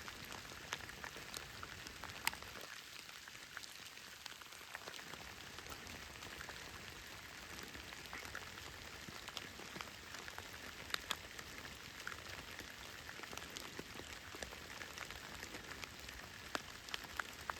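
Light rain falling steadily, a soft hiss with scattered sharp ticks of individual drops striking close by; a few louder drop hits about two seconds in, around eleven seconds and near the end.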